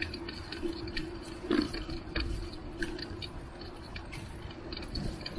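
Bicycle rolling along a paved sidewalk, rattling with many irregular small clicks and ticks over a steady low hum.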